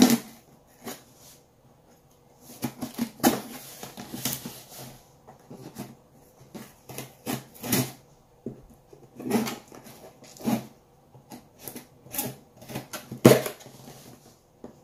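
A metal blade slitting packing tape on a cardboard shipping box, with the tape and cardboard scraping, crackling and ripping in short, irregular strokes; the loudest rip comes near the end.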